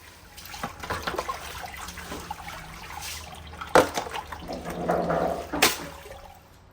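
Water splashing and running off a heavy, soaked floor mat after scrubbing, with two sharp knocks partway through.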